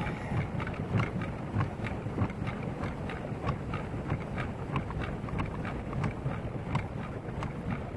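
Pedal boat moving across open water: wind rumbling on the microphone with a steady run of light splashes and ticks, a few a second.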